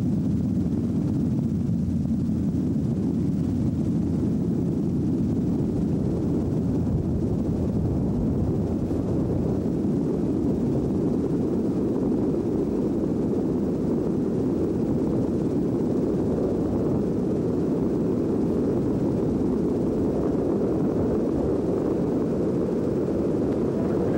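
Robinson R22 helicopter's engine and rotor noise heard from aboard in flight: a steady low drone.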